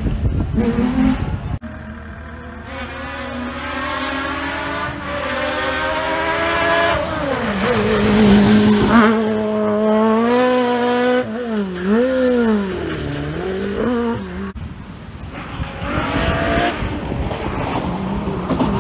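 Rally car engines revving hard on a gravel stage, several cars one after another. The pitch climbs steadily as a car accelerates, then swings quickly up and down with the throttle and gear changes.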